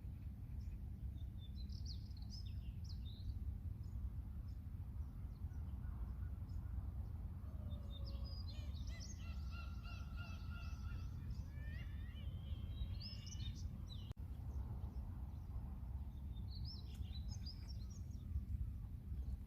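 Seagulls and other birds calling in scattered bursts over a steady low outdoor rumble, with a longer run of calls about halfway through.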